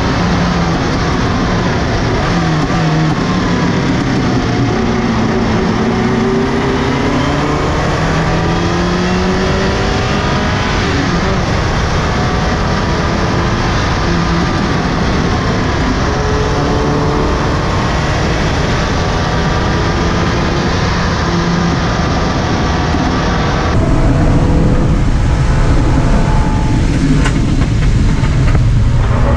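Subaru Impreza GC8 rally car's turbocharged flat-four engine driving hard on a tarmac stage, its note rising and falling continuously as it accelerates and slows, over road and tyre noise. The sound grows a little louder about 24 seconds in.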